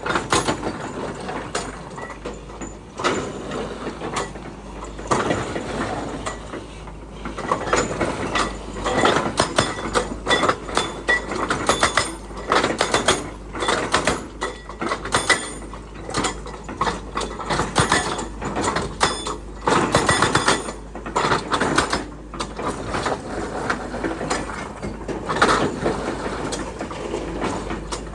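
Hitachi excavator at work: the engine runs under steady noise while metal parts knock and clank repeatedly and irregularly throughout.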